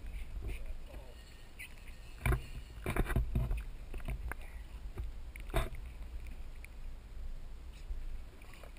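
Sea water slapping and splashing against a boat's hull over a steady low rumble of wind and water, with a few sharp knocks about two, three and five and a half seconds in.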